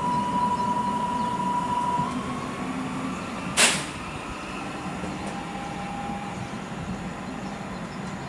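Newag Impuls electric multiple unit pulling away, its traction drive whining at one steady pitch, then gliding slightly up and fading as it draws off. A short, sharp hiss about three and a half seconds in is the loudest sound.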